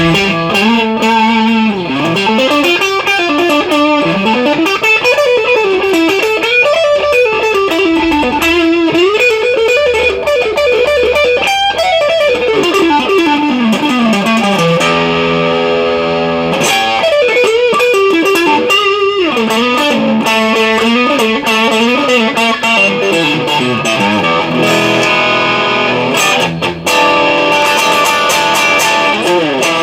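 Fender Masterbuilt Jason Smith NOS Stratocaster electric guitar played solo: fast single-note runs sweeping up and down, a held chord about halfway through, then more runs and chords.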